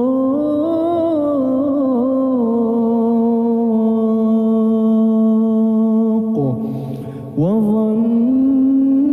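A single voice chanting in long, held, ornamented notes, in the melodic style of Quran recitation. About six seconds in the pitch drops low for a second, then glides back up to the held note.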